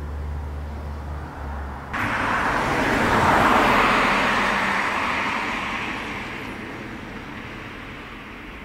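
A low hum at first, then a car passing on the street: its tyre and engine noise comes in about two seconds in, swells to a peak, then slowly fades away.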